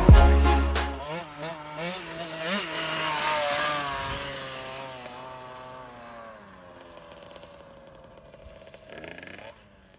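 Small youth dirt bike engine revving up and down as it is ridden, growing fainter as it moves away. Music ends about a second in, and the sound cuts off just before the end.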